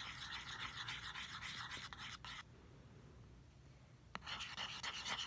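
Bobby pin scraping and stirring thick hand soap and paint on cardboard in quick, rhythmic strokes. It pauses about halfway, then starts again after a small click near the end.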